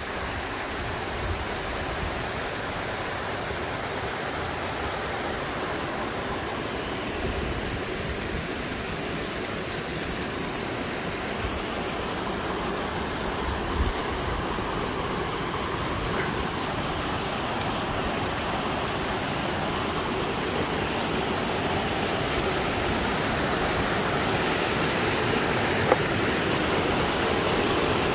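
Steady rushing of a mountain stream, growing gradually louder.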